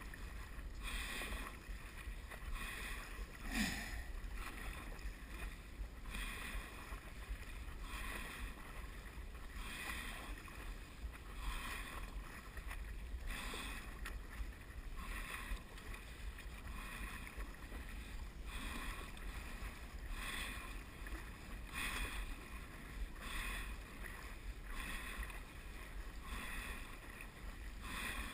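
Stand-up paddle strokes in calm water: the blade dips and pulls with a splash every second or two, one louder splash about four seconds in, over a steady low rumble.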